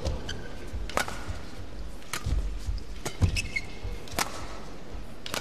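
Badminton racket strikes on a shuttlecock during a rally, five sharp hits about a second apart. Between the hits come footfalls and brief squeaks of shoes on the court, over steady arena ambience.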